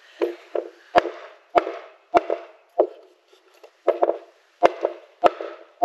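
Hammer blows on a wooden board as it is knocked into place in the door sill framing: a run of about eight sharp knocks, roughly every half second, with a short pause near the middle.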